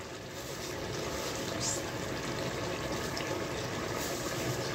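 Mutton with onions and ginger-garlic paste sizzling steadily in oil in a pot on a gas stove during the bhuna (browning) stage, a constant hiss.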